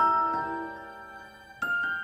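Background score of soft, bell-like mallet notes. A chord struck at the start rings and fades away, then new notes come in near the end.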